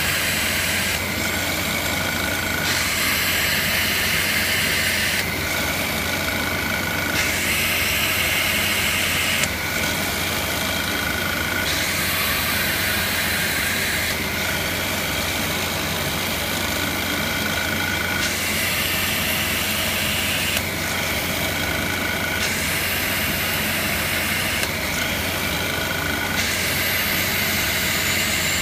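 Drill press motor running steadily while a 6 mm sintered diamond drill bit grinds wet through glass, one hole after another. The grinding changes every two to three seconds as each hole is finished and the glass is moved on.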